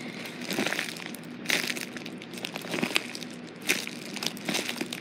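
A big plastic bag crinkling and crunching irregularly as it is handled and turned over in the hands.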